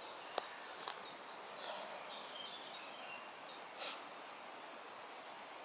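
A wild songbird singing a quick series of short, high, down-slurred chirps, with two sharp clicks in the first second and a brief whoosh a little under four seconds in.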